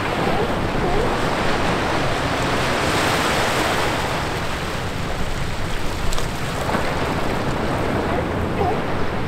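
Small ocean waves washing in through a gap between rocks and running up over wet sand: a steady rush of surf that swells about three seconds in.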